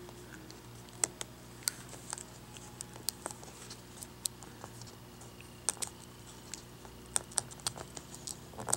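Small, irregular clicks and ticks of a hobby knife blade and fingertips picking at adhesive tape on a laptop LCD panel's display connector, over a faint steady hum.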